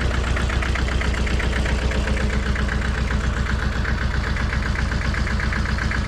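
Mitsubishi D2000 compact tractor's diesel engine idling steadily with an even, rapid clatter.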